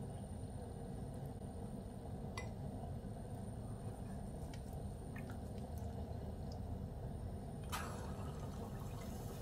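Thick chickpea-flour batter squelching faintly as a potato ball is coated by hand, over a steady low hum. About eight seconds in, the battered ball drops into hot deep-frying oil with a sudden splash, and the oil starts to sizzle.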